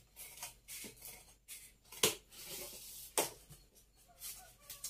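Scissors cutting through corrugated cardboard in a run of irregular snips, with two louder snips about two and three seconds in.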